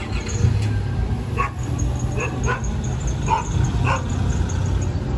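A dog barking about five times at irregular intervals, over the steady low rumble of the moving train.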